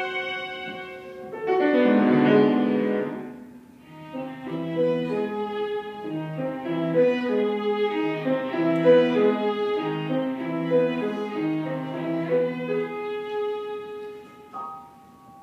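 Violin and grand piano playing a classical piece together: the violin draws held notes over a steady run of short, low piano notes. The music thins out and quietens near the end.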